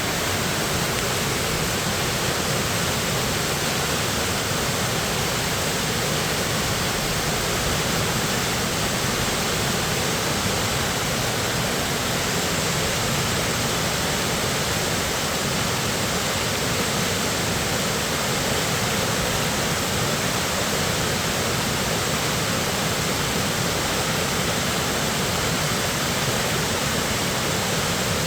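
A waterfall swollen by heavy rain, its falling water making a steady, loud rush.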